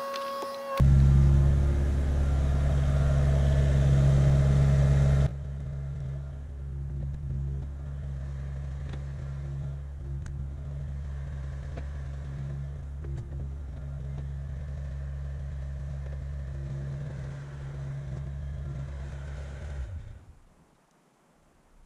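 Kubota KX057-5 mini excavator's diesel engine running. It comes in suddenly about a second in, loud for a few seconds, then drops abruptly to a lower steady level and fades out near the end.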